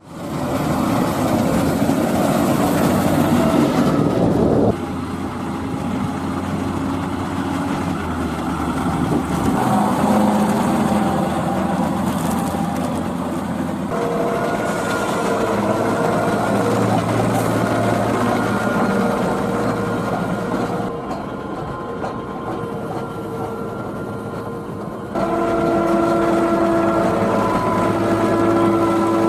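Tractor engines running across several edited shots with abrupt changes between them: first a tractor pulling a forage wagon along a road, then a New Holland T7.270 with a front maize-leveller blade working a silage clamp, its engine steady under load with a few constant tones over it.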